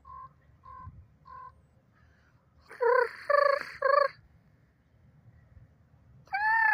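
Birds calling: three soft short notes, then three loud calls in quick succession about three seconds in, and another loud call rising and falling in pitch near the end.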